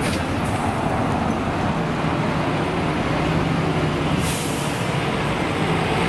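A city bus engine running as the bus drives past close by, with a short hiss of compressed air about four seconds in.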